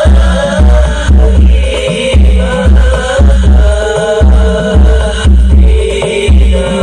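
Sholawat devotional music played very loud through a 'horeg' village sound system: a deep bass beat about twice a second under a wavering melody.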